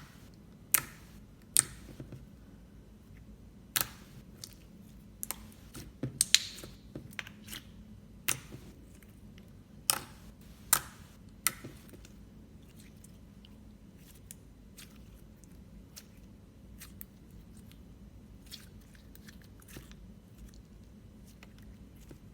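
Slime being pressed and worked by hand, giving off irregular sharp clicks and pops, many in the first half and fainter and sparser after.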